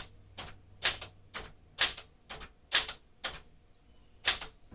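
1973 Smith-Corona Sterling manual typewriter typing the number keys one at a time, each typebar striking the platen about twice a second, with a short pause near the end.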